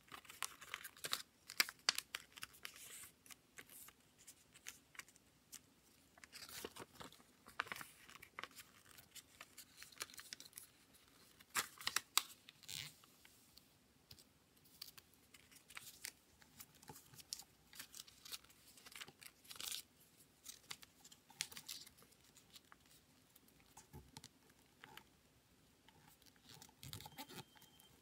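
Paper rustling and crinkling in short, irregular scratches as a sheet is folded and its creases are pressed flat with the fingers.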